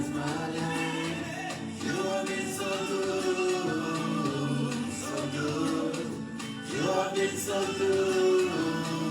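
Gospel music: singing with long held notes over instrumental accompaniment.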